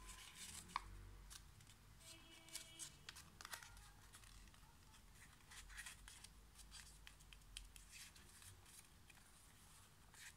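Faint rustling, creasing and tapping of a square sheet of paper being folded by hand, in many small scattered clicks and crinkles.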